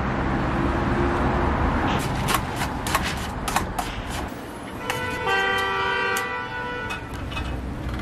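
A low steady rumble, with a run of sharp metallic clinks about two to four seconds in as tongs knock in a steel batter cup. A horn of several steady tones sounds for about two seconds past the middle.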